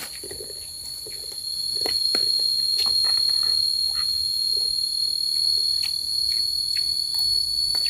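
Steady high-pitched insect drone that swells about two seconds in and then holds. Scattered light clicks and taps sound over it.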